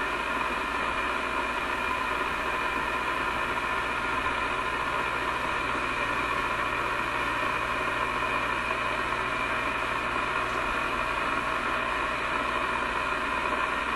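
Steady hiss and static from an RCA A25 vacuum tube radio's speaker, tuned to 11.9 megacycles on the shortwave band with the test signal lost and nothing coming through.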